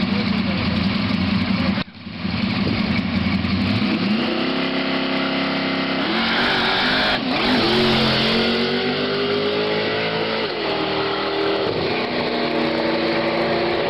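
Drag-racing cars' engines at full throttle down the strip: the pitch climbs through the gears, dropping at a shift about six seconds in and again around ten seconds. The sound cuts out for an instant about two seconds in.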